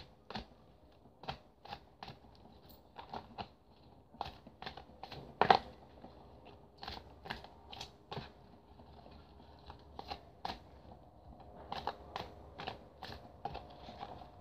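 A deck of oracle cards being shuffled by hand: irregular soft clicks and slaps of card edges, about two a second, with one louder snap about five and a half seconds in.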